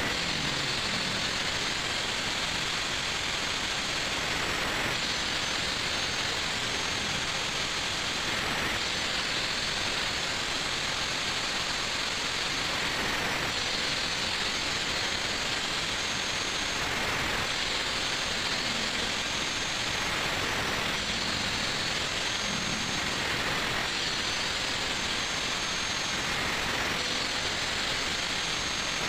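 Electric angle grinder running with a thin disc cutting into a motorcycle's steel sprocket output shaft to re-cut its worn splines. Steady high whine over a grinding hiss that swells and eases every few seconds as the disc is pressed on and let off the metal.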